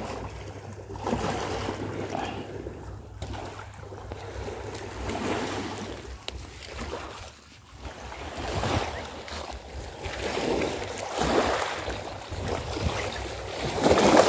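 Small sea waves washing onto a pebble and rock shore, surging and falling back every couple of seconds.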